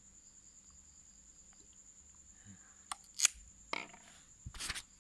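A faint steady high tone, then a few sharp clicks and knocks in the second half, as of small objects being handled while a remedy is prepared.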